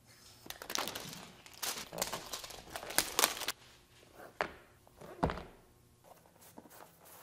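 Cardboard knife box handled on a wooden cutting board. A run of scraping and rustling as it is slid and picked up, then two thumps about four and five seconds in.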